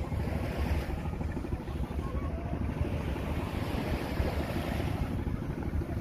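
Small waves washing onto a sandy beach, with wind buffeting the microphone as a steady low rumble.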